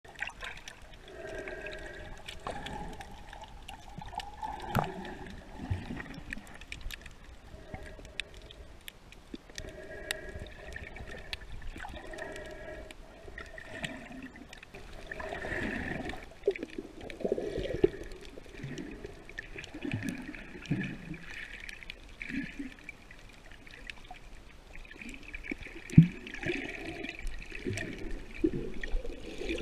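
Muffled underwater water sound picked up through an action camera's waterproof housing: gurgling and sloshing with many faint scattered clicks, and one sharp knock near the end.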